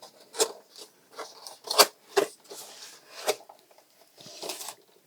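Keyboard box and packaging being opened and the contents pulled out: irregular sharp rustles, crackles and light knocks, the loudest a little under two seconds in, with a longer rustle near the end.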